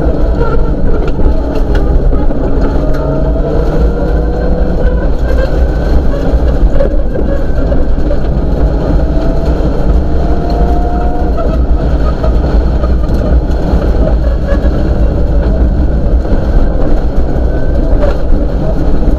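Rally car heard from inside the cabin, its engine running hard under a loud, steady rumble from the dirt road; the engine note rises a few times as the car accelerates.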